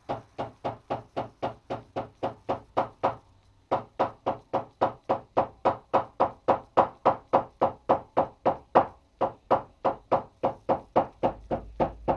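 A mallet knocking steadily, about four blows a second, along the overlapped seam of two pieces of veg-tanned leather on a wooden workbench. It pauses briefly about three seconds in, then carries on.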